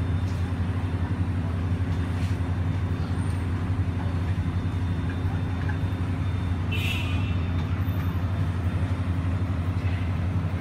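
Steady low hum of city street noise, with a brief higher sound about seven seconds in.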